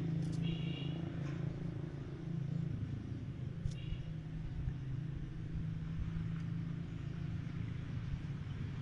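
Electric hair clipper running with a steady low buzz as it trims short hair around and above the ear.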